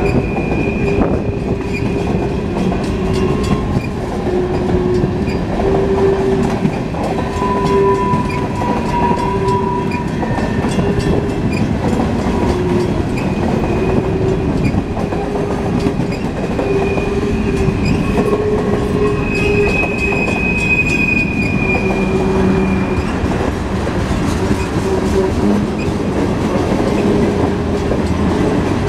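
Canadian National freight train's cars rolling past: a steady rumble and clatter of steel wheels on the rails, with high wheel squeal that wavers in pitch and comes and goes.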